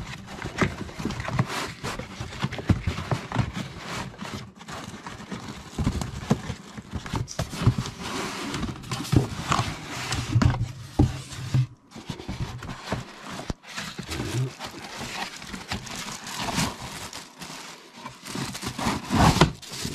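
Cardboard box flaps and moulded pulp packing trays scraping, rubbing and knocking as they are pulled out of a shipping box, with irregular scuffs and thumps throughout.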